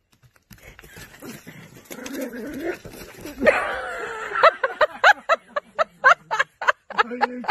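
Small dog barking in rapid, high yaps, about three a second, from about halfway through. Before that come rustling noise and one loud cry.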